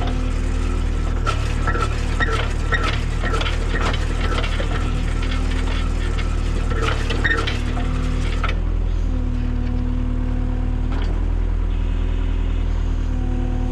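Skid steer engine running steadily while its homemade auger drills a post hole. There is rattling and clanking for the first eight seconds or so, then the engine goes on alone.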